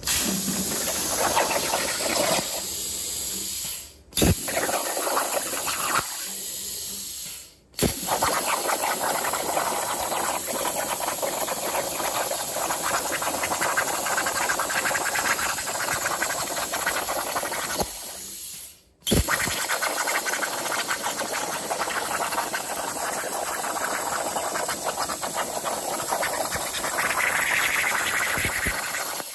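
CNC plasma cutter torch cutting steel plate, a loud, steady hiss of the cutting arc. The arc stops and restarts three times, about 4, 7.5 and 19 seconds in, each restart starting with a sharp pop.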